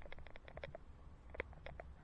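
A bicycle ticking and rattling in quick, irregular clicks over a steady low road rumble. The clicks come fast for the first part of a second, and a sharper click stands out about a second and a half in.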